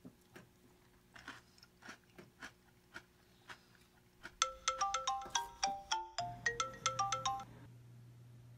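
Faint spoon clinks and crunchy chewing of breakfast cereal, then an iPhone ringtone: a quick melody of bright, stepped notes that starts about four seconds in and stops about a second before the end.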